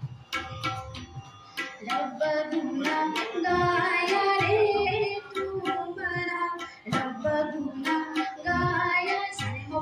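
A girl singing into a microphone, accompanied by tabla. Tabla strokes keep a steady beat, and her voice comes in about two seconds in, holding long notes over the drumming.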